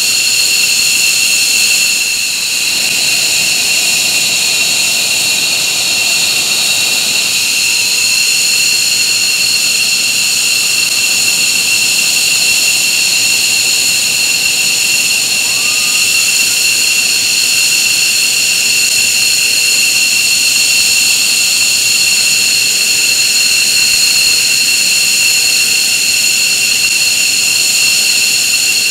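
F-15J Eagle's twin F100 turbofan engines idling on the ground after start-up: a loud, steady jet whine made of several high whistling tones over a rushing noise.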